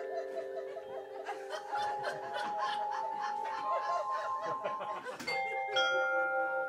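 Glockenspiel notes struck with mallets and left ringing, with laughter over the first few seconds; a new set of notes is struck about five seconds in.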